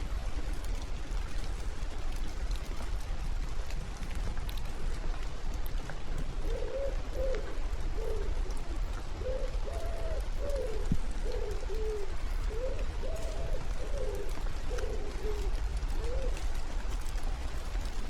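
A pigeon cooing a series of soft, low coos, each rising and falling, in short repeated phrases that begin several seconds in and last about ten seconds. Underneath is a steady hiss of light rain.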